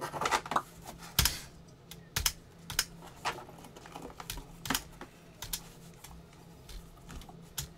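Scattered light clicks and taps, one or two a second, with a short rustle near the start.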